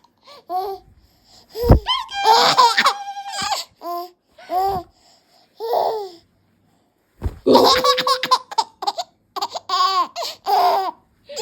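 A baby laughing in repeated high-pitched bursts of short giggles, falling silent for about a second a little past the middle, then laughing again in a rapid run. A couple of low thumps come in the gaps, one about two seconds in.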